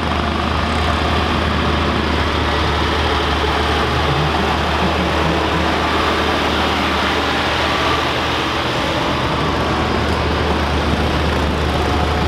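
Massey Ferguson 1135 tractor's turbocharged six-cylinder diesel engine running steadily as the tractor drives past.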